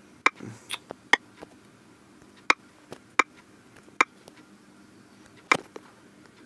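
Sharp, irregular taps of typing on a smartphone's on-screen keyboard, about seven in all, roughly a second apart.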